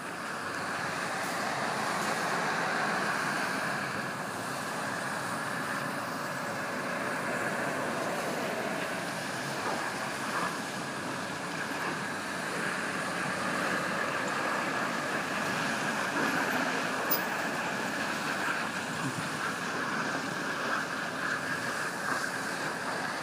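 Steady road traffic noise: an even wash of passing vehicles with no distinct events.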